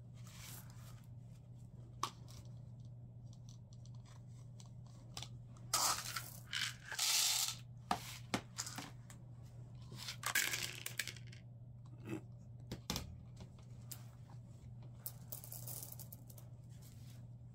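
Dry whole corn kernels scooped from a plastic bucket and poured through a plastic funnel into a cotton flannel tube, rattling and pattering in a few bursts, with scattered clicks of kernels and scoop. A low steady hum runs underneath.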